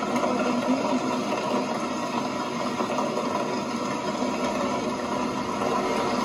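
Heavy hail falling: a dense, steady clatter of hailstones striking.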